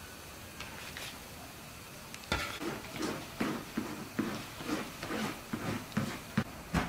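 Handling noises at a large aluminium pot: soft knocks and rustles of butter pieces, a knife and butter wrapping paper, coming two or three times a second from a couple of seconds in, with a sharper knock near the end.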